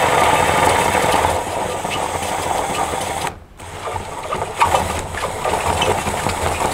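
Cordless DeWalt drill spinning a carbide hole saw into a vinyl porch ceiling. It stops briefly a little past three seconds in, then starts cutting again. The vinyl bounces because the small pilot hole doesn't hold the mandrel bit tight, which risks a sloppy cut.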